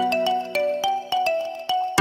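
Background music: a light, bouncy tune of quick struck, bell-like melody notes, about six a second.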